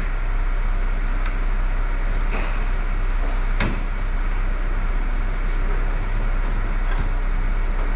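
Steady mechanical drone with a low hum, with a few light clicks as a part is pressed into place on the car's rear, the sharpest about three and a half seconds in.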